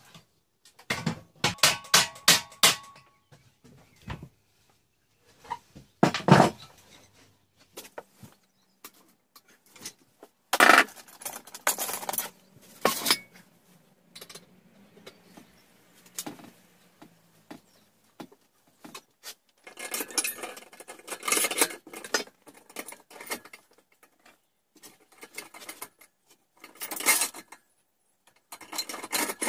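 Steel parts of a homemade wood lathe clinking and knocking as they are handled and fitted by hand: a motor, brackets, bolts and a steel bar set against the steel frame, in scattered clusters of clatter.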